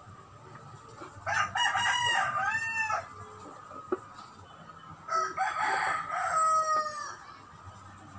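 A rooster crowing twice, each crow about two seconds long.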